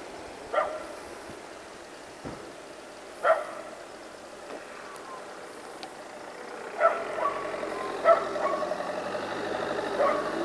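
A dog barking several times, short single barks a few seconds apart, over steady background noise.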